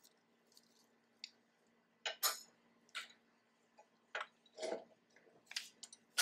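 Irregular metallic clinks and knocks of steel bike-rack parts being handled and fitted at a trailer-hitch receiver, with a faint steady hum underneath.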